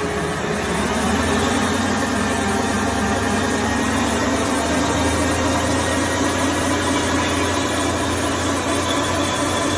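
Steady mechanical running noise: a constant drone with a low hum underneath that holds level without changing.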